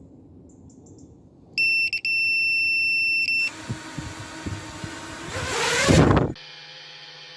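A loud, steady electronic beep lasting about two seconds with a brief break near its start, then a few knocks under a rising whoosh that swells and cuts off sharply about six seconds in. Background music follows.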